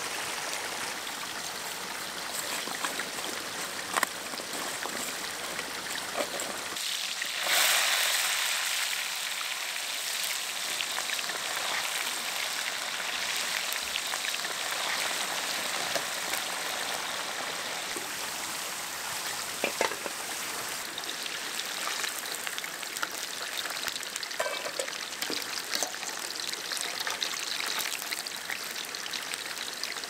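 Creek water running, then about seven seconds in a sudden loud sizzle as potato wedges go into hot vegetable oil in a steel pan, settling into steady deep-frying hiss with small crackles and pops.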